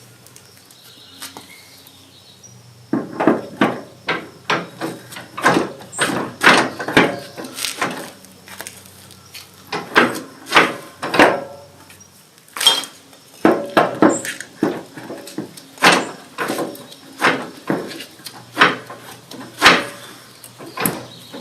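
A run of irregular sharp metal knocks and clanks as a front wheel is worked onto a John Deere D140 lawn tractor's axle spindle. They start about three seconds in and pause briefly around the middle.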